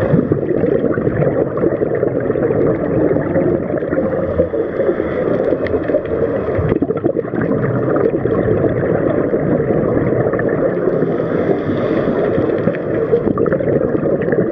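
Steady, muffled underwater rumble of water moving around a diving camera, heavy in the low end.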